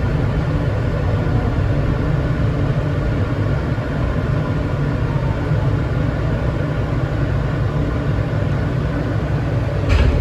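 R160B Siemens subway train running, heard from inside the car: a steady low rumble with faint steady tones above it. A short knock sounds near the end.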